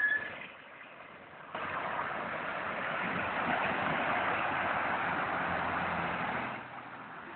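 A sharp click at the very start, then a loud, even rushing of water that starts abruptly about a second and a half in and drops away near the end.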